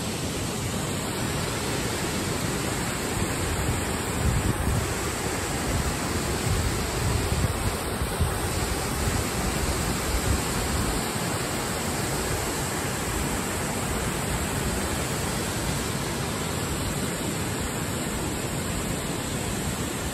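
Wide, low curtain waterfall pouring over a rock ledge into a pool, heard up close: a steady, full rush of falling water.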